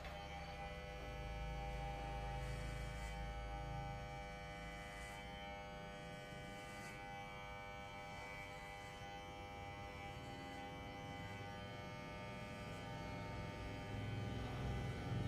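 Corded electric hair clipper running with a steady buzz while it trims short hair close to the scalp.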